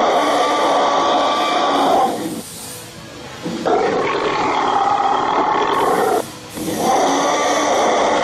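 Recorded Tyrannosaurus rex roar sound effect for a walking dinosaur costume: long drawn-out roars of about two and a half seconds each, with short gaps between them, the last one starting near the end.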